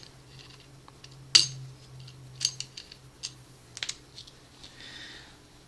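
Scattered metallic clicks and clinks as a knife blade is set into the clamping jaws of a knife-sharpening jig; the sharpest click comes about a second and a half in, with a soft scrape near the end. A faint low hum runs underneath.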